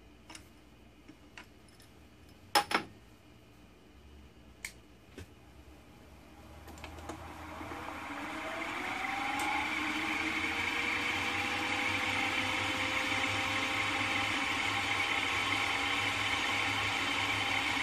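A few light clicks and one sharp knock, then a milling machine's spindle is switched on: the motor winds up with a rising whine over a few seconds and then runs steadily at speed.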